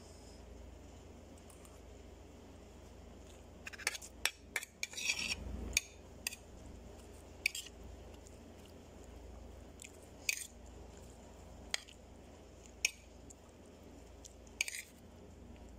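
A metal spoon scraping and clinking against a ceramic plate of rice, in short strokes: a quick run of them about four to six seconds in, then single ones every second or two.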